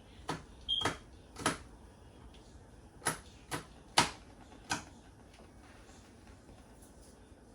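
Sharp clicks and knocks of kitchen utensils being handled during food preparation: about seven of them at irregular spacing over the first five seconds.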